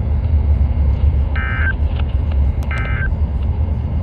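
Two short bursts of EAS end-of-message (EOM) digital data tones, a buzzy warbling screech, about a second and a half apart, over a steady low hum.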